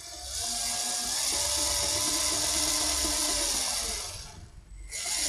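Lego Mindstorms NXT servo motors whirring through their gear trains, with their speed set by the tilt of a phone. The whir fades out about four seconds in and starts up again just before the end.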